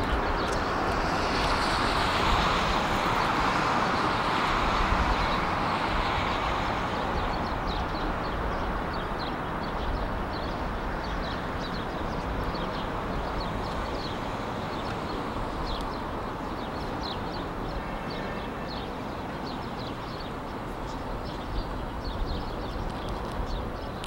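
Steady outdoor traffic noise, swelling as a vehicle passes in the first few seconds and then settling, with faint rapid clicks in the second half.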